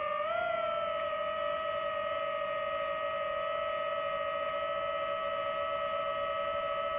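DJI FPV drone's motors and propellers whining in flight: one steady high whine with several overtones, which rises a little in pitch about half a second in, as the throttle comes up, and then holds.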